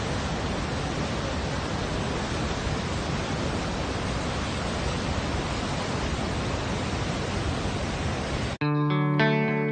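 Niagara's American Falls rushing: a steady, even wash of falling-water noise. Near the end it cuts off abruptly and guitar music starts.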